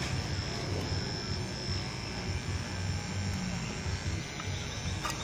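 Small electric motors of a remote-control model excavator buzzing steadily as its boom and arm move, with a thin high whine over a low rumble and a sharp click near the end.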